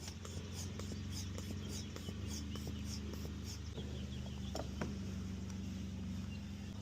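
Faint light clicks and scratching, like lockout tools working at a car door, over a steady low hum.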